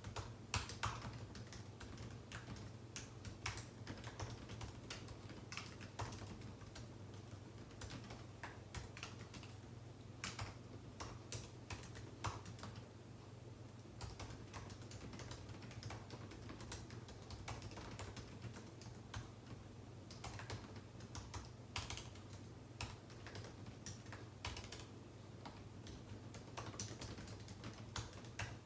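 Typing on a computer keyboard: quick irregular runs of key clicks with brief pauses between them, over a faint steady low hum.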